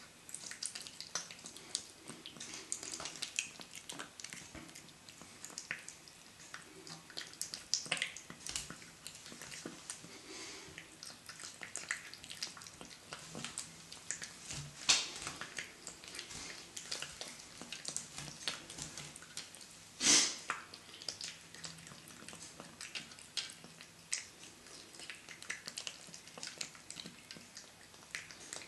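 A cat eating wet food chunks from a stainless steel bowl, with irregular wet smacking and chewing clicks. Two louder knocks come about 15 and 20 seconds in.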